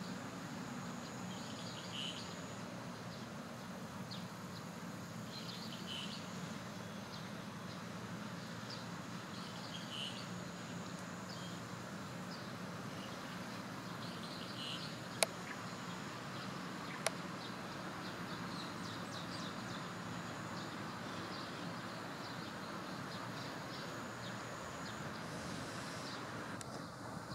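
Steady outdoor background noise with a low hum and faint high bird chirps every few seconds. Two sharp clicks come about halfway through, a couple of seconds apart.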